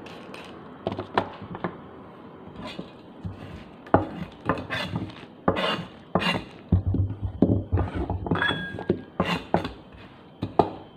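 Kitchen utensils knocking and scraping on a wooden chopping board while a squash is peeled: a run of irregular clicks and knocks, busier in the second half.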